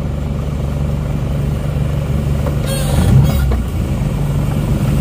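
Isuzu Panther's freshly overhauled diesel engine running steadily under way, heard from inside the cabin, growing slightly louder, with a brief extra noise about three seconds in.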